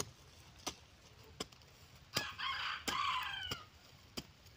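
A rooster crows once, about two seconds in, lasting over a second. Underneath, a garden tool chops into soft soil in steady strokes, about one every 0.7 seconds.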